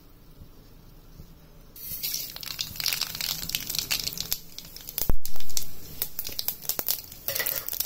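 Hot vegetable oil in a kadai sizzling and crackling with many sharp ticks and pops, starting suddenly about two seconds in. There is a single loud low thump about five seconds in.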